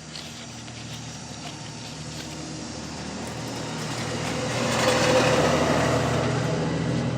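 A motor vehicle going by: its noise swells gradually, peaks about five seconds in, then eases off a little.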